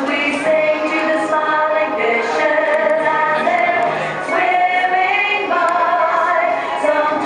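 Choral music: a choir singing long held notes that move from chord to chord.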